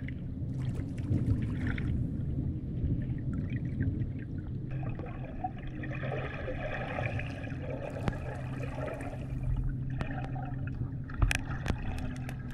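Underwater sound picked up through an action camera's housing: a steady low hum under water gurgling and crackling, which thickens for a few seconds in the middle. A few sharp clicks and knocks come near the end.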